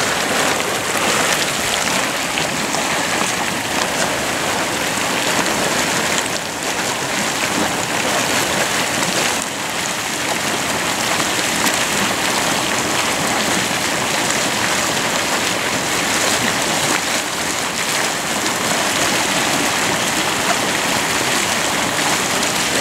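Hot volcanic mud pot bubbling fast: a dense, steady patter of gurgling and popping bubbles, the sign of mud kept boiling by volcanic heat.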